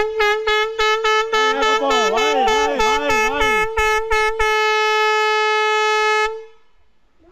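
Air horn sounding one long steady blast of about six seconds, with a rapid clatter of strikes, about four a second, over its first four seconds and a lower wavering tone in the middle.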